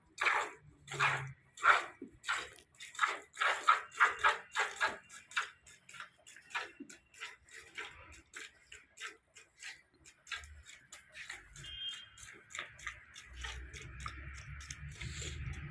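Milk squirting into a pail as a desi cow is milked by hand, in rhythmic strokes about two a second; about halfway through the strokes come quicker and softer.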